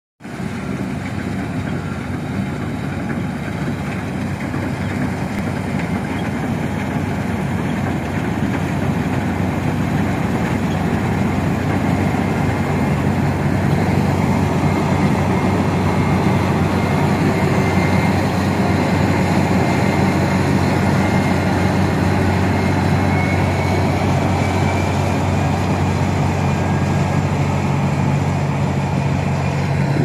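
New Holland TC56 combine harvester running as it cuts rice: a steady engine hum with the threshing machinery noise over it. It grows louder over the first dozen seconds as the machine comes close.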